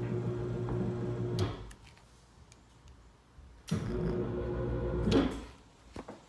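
Electric hoist motor humming steadily as it moves a Jeep Wrangler JK hardtop on rope and pulleys. It runs in two short bursts of about a second and a half each, worked from a push-button pendant, and the second burst ends in a thump.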